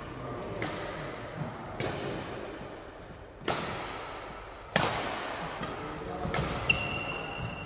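Badminton doubles rally: sharp racket-on-shuttlecock hits about every one to one and a half seconds, six in all. Near the end a shoe gives a short high squeak on the court floor. Voices carry in the background.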